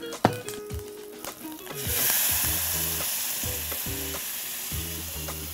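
Blended butternut soup poured into a hot pan of crisp-fried onions, sizzling loudly. A few light clicks come first, then the sizzle starts suddenly about two seconds in and slowly fades.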